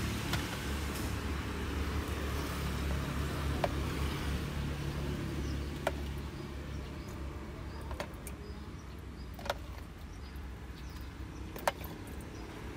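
A metal spoon scraping and knocking inside a plastic tub, giving about six sharp taps a second or two apart, over a steady low rumble.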